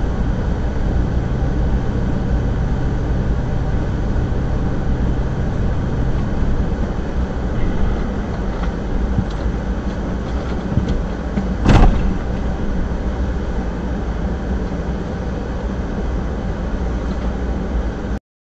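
A steady vehicle rumble picked up by a dashcam microphone as a pickup truck moves past on snow. A single sharp bang about twelve seconds in is the loudest sound.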